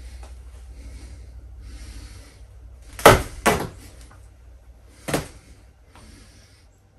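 Large plush stuffed horse being torn apart by hand: soft rustling of fabric and stuffing, then three loud, sharp rips as its seams tear, about three seconds in, half a second later, and near the five-second mark.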